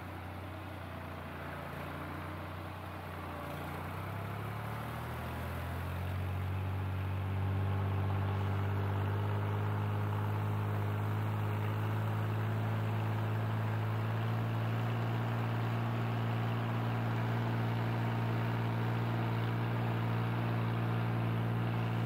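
New Holland tractor's diesel engine running, picking up speed and growing louder over the first several seconds, then holding a steady note.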